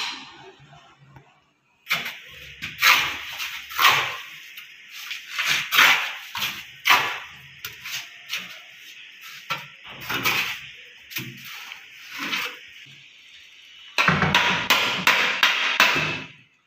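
Bricks being set and knocked down into wet cement mortar: irregular knocks and scrapes of brick on brick and mortar, with a denser, louder run of knocks near the end.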